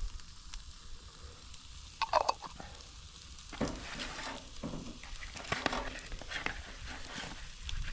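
Breakfast burrito fillings sizzling on a Blackstone flat-top griddle, with sharp clicks and scrapes of utensils on the cooktop. A brief louder clatter comes about two seconds in, and the scraping gets busier from the middle on.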